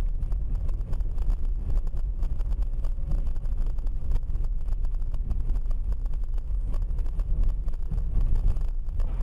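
Steady low rumble of a moving car heard from inside the cabin through a dashcam: tyre, engine and wind noise while driving at steady speed.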